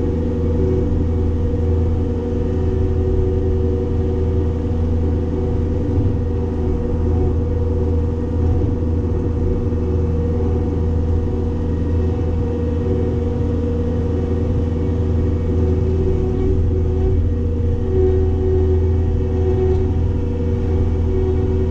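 Cat 262D skid steer's diesel engine running steadily at working speed, driving a Loflin open-front hydraulic brush cutter, with a constant hum of several steady tones.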